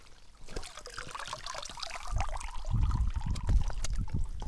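Water pouring and dribbling out of a mesh keepnet as it is lifted from the river, with small splashes and clicks. From about two seconds in, low rumbling knocks join it and grow louder.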